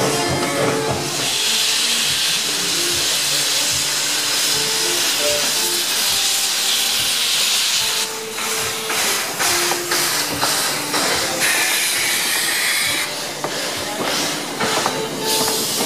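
NSW C36-class steam locomotive 3642 moving off with a loud, steady hiss of steam. About halfway through the hiss breaks up into a run of sharp, regular beats as the engine works past, with bursts of hissing between them.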